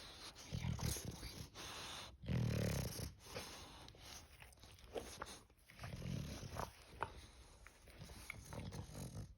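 English bulldog snoring: three rough snores, a few seconds apart, the second the loudest.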